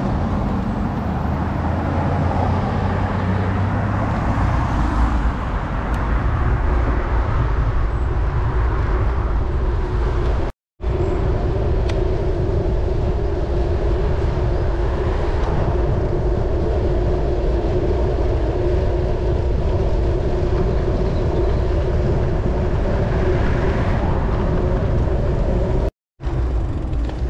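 Wind rushing over the microphone of a camera carried on a moving bicycle, with road and tyre noise. A car is heard in the first few seconds. The sound cuts out abruptly for a moment twice.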